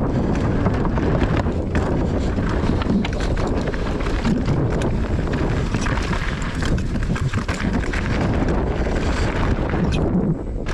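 Mountain bike riding down a dirt freeride trail: wind rushing over the microphone, tyres on dirt, and a continual run of small clicks and rattles from the bike, with a brief lull near the end.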